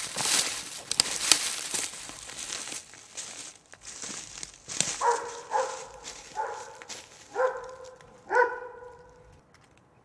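Footsteps crunching through dry leaves and twigs, then five short, clear animal calls, like barks, about halfway through, spaced half a second to a second apart.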